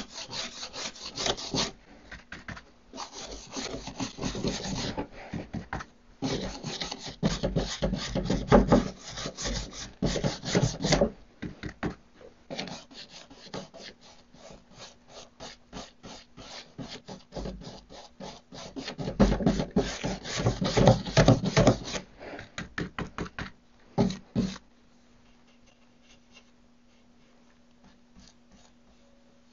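A paintbrush scrubbing primer onto a wooden cabinet door, in quick back-and-forth strokes that come in spells and stop about 25 seconds in.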